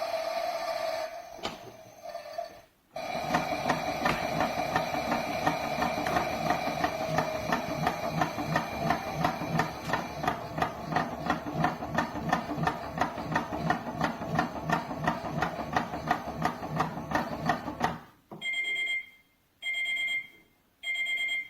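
Theo Klein toy Miele washing machine playing its washing-cycle sound effect: a steady whirring with even ticking, about three to four ticks a second. It stops and is followed by three electronic beeps that mark the end of the programme.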